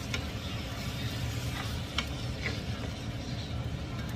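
A few light clicks and knocks of kitchen handling, the sharpest about two seconds in, over a steady low hum.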